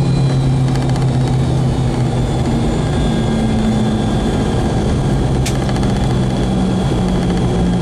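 Cabin noise of a DC-9-50 rolling out after landing: its Pratt & Whitney JT8D-17 turbofans run at low power with a high whine that slowly falls in pitch, over a steady low hum and rumble. One sharp click about halfway through.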